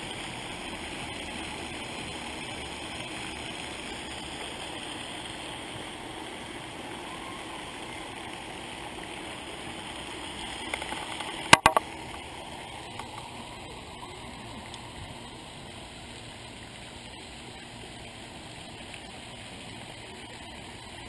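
Steady rushing hiss of a pond fountain's spray. About halfway through comes a quick cluster of sharp knocks, and after it the hiss is a little quieter.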